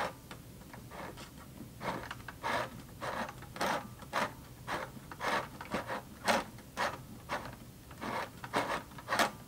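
Cheap plastic mini sewing machine turned over slowly by its handwheel, the needle mechanism clicking and rubbing about twice a second as it forms a stitch.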